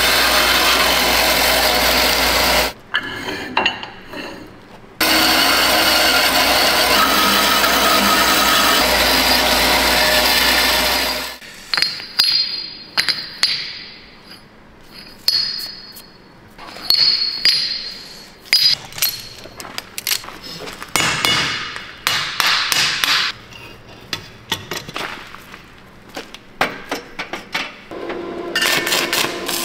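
Metal-cutting band saw running through steel stock under coolant, a loud steady noise that stops about 3 s in and starts again for about six seconds more. Then a long run of sharp clinks and clanks, some of them ringing, as the cut steel plates are handled and stacked.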